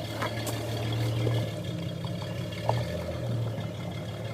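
Jeep Grand Cherokee ZJ's engine running steadily at low revs as it wades through canal water, with water sloshing and pouring around the vehicle. There is a short knock about two-thirds of the way through.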